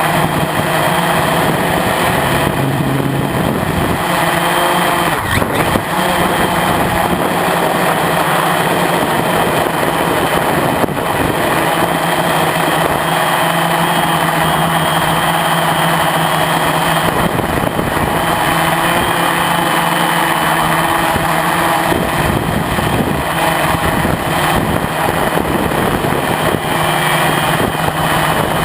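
Lotusrc T380 quadcopter's electric motors and propellers running in flight: a loud, steady buzz with an even hum, picked up by the GoPro mounted on the craft.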